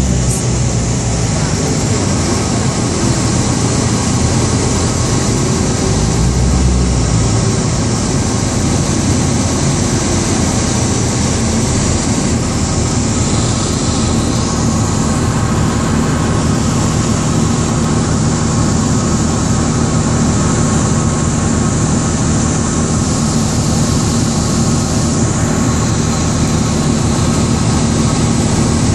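Steady, loud city background noise: a constant rumble with a low hum running through it, typical of traffic and machinery.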